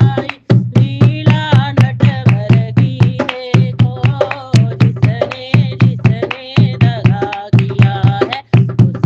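Bhajan-style devotional song: a voice singing a melody over a steady beat of deep drum strokes.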